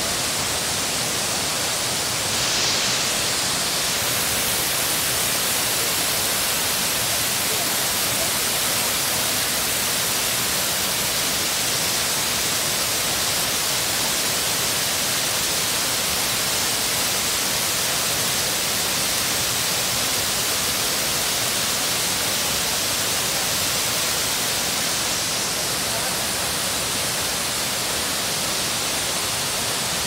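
Steady, unbroken rush of falling water from the tall Kapuzbaşı waterfall.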